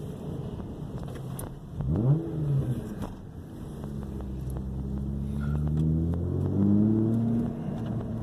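Ford Probe GT engine under way: a quick rev that rises sharply and falls back about two seconds in, then the engine note climbing steadily under acceleration before dropping at a gear change near the end.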